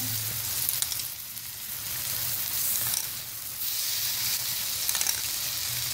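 Hot pot of sweet rice sizzling as milk is ladled over it: a steady hiss with a few faint ticks.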